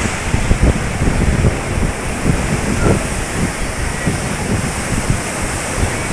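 Sea waves surging and breaking against the shore, a continuous rushing wash, with wind buffeting the microphone in irregular low gusts.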